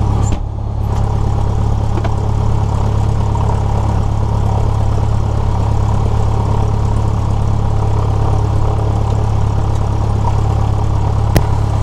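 Cessna 172S's Lycoming IO-360 four-cylinder engine and propeller idling steadily on the ground, heard from inside the cabin. A single click about eleven seconds in.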